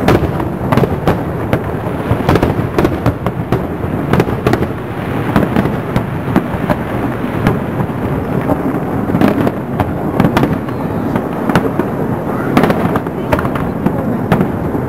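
Aerial fireworks shells bursting in a continuous, irregular series of bangs, several at times in quick succession, over a steady background din.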